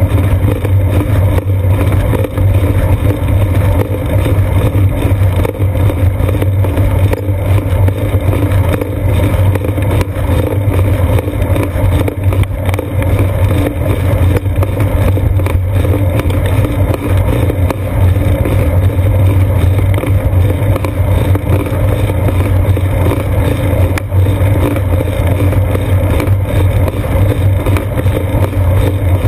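Steady, loud low rumble of wind and road vibration on a seat-post-mounted GoPro Hero 2 while a bicycle rolls along pavement.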